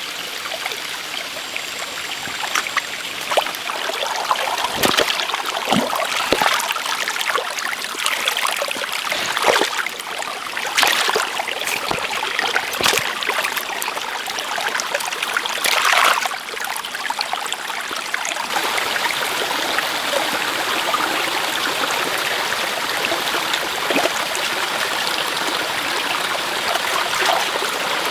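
Steady sound of running water, with scattered sharp knocks and scrapes through the middle of the stretch.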